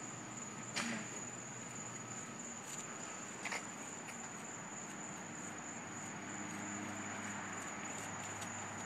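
Crickets trilling steadily in a high, continuous tone outdoors at night, with two short sharp knocks about one second and three and a half seconds in.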